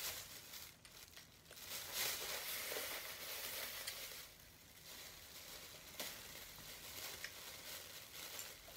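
Clear plastic food bag crinkling and rustling as it is handled, in uneven bursts, loudest about two to four seconds in.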